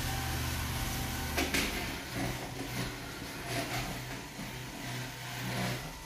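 Roomba s9 robot vacuum running on a hardwood floor: a steady motor hum whose low tone shifts about two seconds in as it manoeuvres along the door edge. A sharp knock about a second and a half in.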